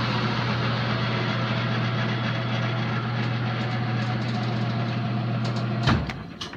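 Logan model 2557 metal lathe running in direct drive at about 2,000 RPM: a steady, screaming hum and whir from the motor, spindle and spinning chuck. About six seconds in there is a click and the running sound drops away as the lathe is switched off.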